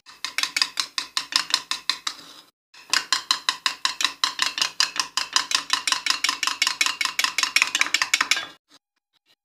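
An egg being beaten in a bowl: a utensil clicks against the bowl in fast, regular strokes. It pauses briefly about two and a half seconds in, then carries on until shortly before the end.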